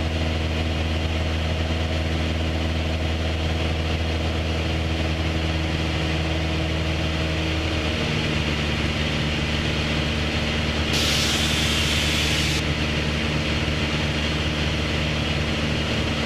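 Light aircraft's piston engine and propeller running steadily, heard from the cockpit, with its note shifting about eight seconds in. A short burst of hiss comes in around eleven seconds.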